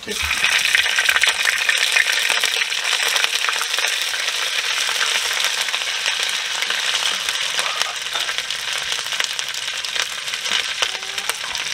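Ginger paste frying in hot coconut oil with mustard seeds and fennel in a clay pot: a loud sizzle full of small crackles that starts suddenly as the paste goes in and eases off slightly over the seconds that follow.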